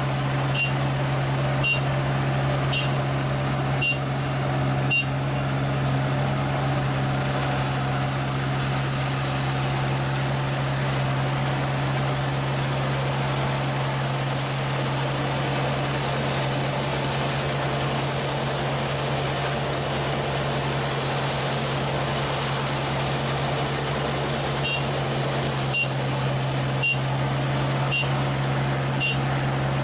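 ISEKI rice combine harvester running steadily at working speed, its engine drone holding one pitch. A high warning beeper sounds about once a second for the first few seconds and again over the last few seconds.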